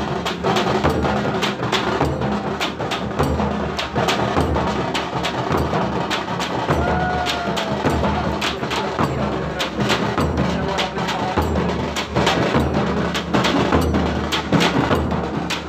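Live dhol drumming for a palkhi dance: a fast, steady rhythm of sharp stick strikes over deep drum beats.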